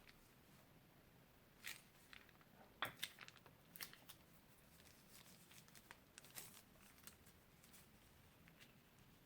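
Crunchy slime crackling and popping as it is squeezed and handled: a scatter of faint, sharp clicks, the loudest about three seconds in.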